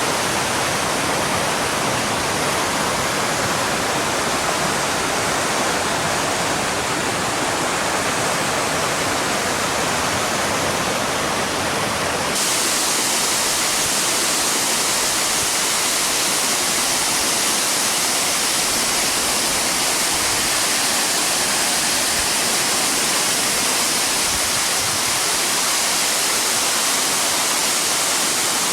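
Waterfall rushing in a steady roar of white water. About 12 seconds in, the sound switches abruptly to a brighter, hissier rush with less low rumble.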